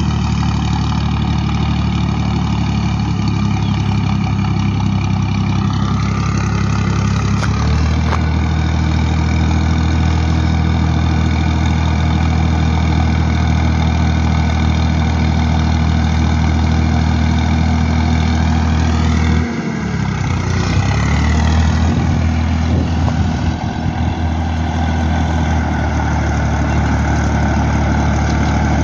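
Diesel farm tractor engine running steadily under load as it pulls a seed planter, with a faint whine above the engine note. Its note shifts about a quarter of the way in and dips briefly, then recovers, about two-thirds of the way through.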